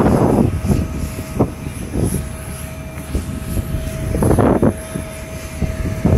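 Airbus A350-1000's Rolls-Royce Trent XWB jet engines running at low taxi power, a steady rumble with a thin whine in the middle. Wind buffets the microphone in gusts, loudest at the start and about four seconds in.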